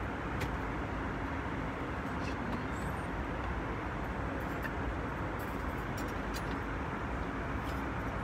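Airliner cabin noise in flight: a steady, even rush of airflow and engine noise with a faint low hum, and a few light ticks.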